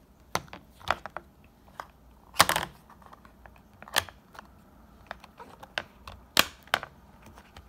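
The silicone bubbles of a simple dimple fidget toy being pushed in by a finger, each giving a sharp pop-click, a satisfying sound. The clicks come irregularly, about ten of them, the loudest a quick cluster about two and a half seconds in and another just past six seconds.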